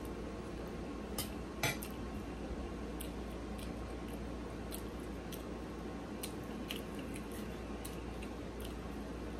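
Eating sounds close to the microphone: a metal utensil clinks on a china plate about a second and a half in, then small scattered clicks of chewing and fingers pulling apart a fried pork chop, over a steady low background hum.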